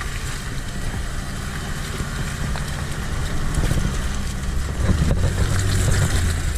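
An SUV's engine running under load on a rough dirt trail, with scattered knocks and rattles. It gets louder over the last couple of seconds.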